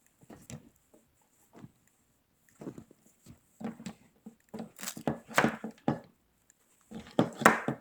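Handling noise of a small clip-on microphone being plugged in and fitted onto a camcorder: irregular plastic clicks, scrapes and rustling, coming in clusters and loudest in the second half.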